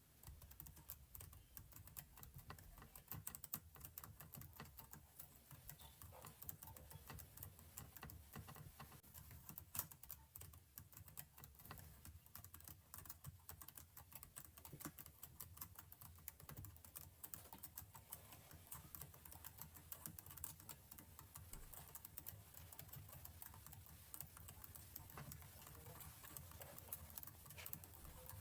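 Computer keyboard typing: a fast, continuous run of faint key clicks.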